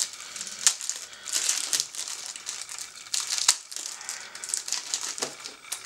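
Clear plastic bag crinkling and crackling irregularly as it is handled and pulled off a small camcorder, with a couple of sharper crackles.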